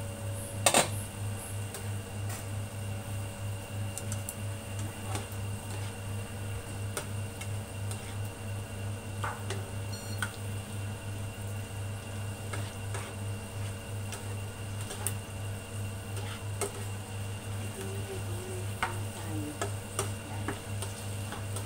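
Induction hob humming at a low power setting, pulsing on and off about three times a second, with a sharp clank about a second in and scattered light clicks of wooden chopsticks against the pan as vegetables are stirred.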